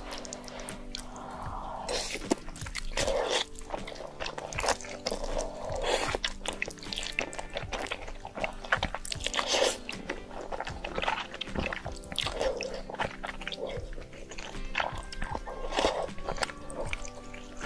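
Close-up eating sounds of a person biting, crunching and chewing a meal of spicy instant noodles with shrimp and egg, in many short irregular bites, over steady background music.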